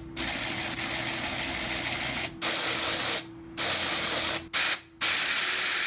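3D-printed cycloidal gearbox driven by an internal brushless motor running with a noisy whir and a faint steady hum underneath. It breaks off briefly about four times.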